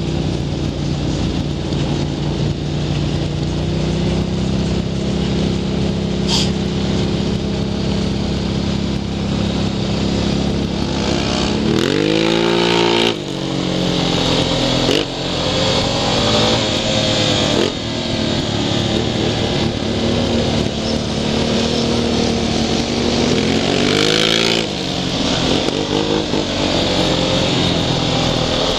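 Single-cylinder four-stroke ATV engine running under way. Its pitch dips and climbs back several times as the throttle is eased off and opened again.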